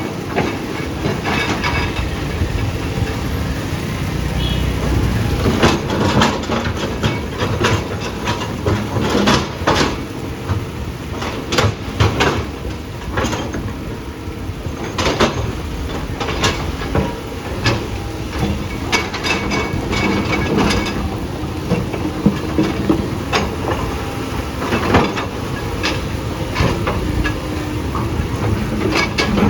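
Tracked earthmoving machine running with a steady low engine rumble, its tracks and bucket or blade clanking, with frequent sharp knocks of hard material being struck or shifted.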